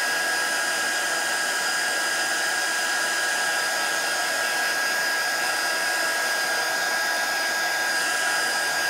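Handheld craft heat tool blowing hot air steadily to dry paint on a paper collage: an even rush of air with a steady high whine from its fan motor.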